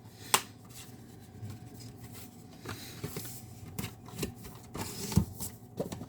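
Plastic disc cases and cardboard slipcovers being handled: light rustling with scattered sharp clicks and a dull knock just after five seconds.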